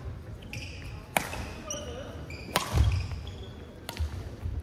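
Badminton rally: sharp racket-on-shuttlecock hits, the two loudest about a second and a half apart. Between them come short squeaks of court shoes on the wooden floor and thudding footsteps.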